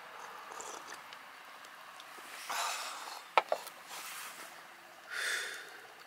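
Eating and dish-handling sounds: a few short noisy rushes and two sharp clicks of a utensil on a dish about three and a half seconds in.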